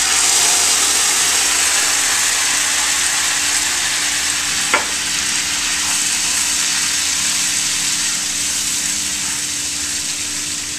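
Butter and brown sugar rum sauce sizzling loudly in a hot sauté pan as it is stirred with a spatula, the rum just added. The sizzle eases slowly, with one sharp click about halfway through.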